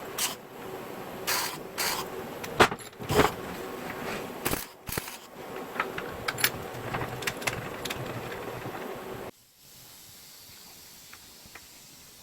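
Metal parts clinking and scraping as they are handled, with a steady hum underneath; the sound cuts off suddenly about nine seconds in, leaving faint hiss.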